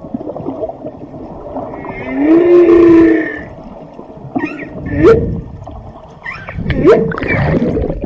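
Whale calls: a long pitched moan that rises slightly and levels off about two seconds in, then several short upward-sweeping whoops in the second half.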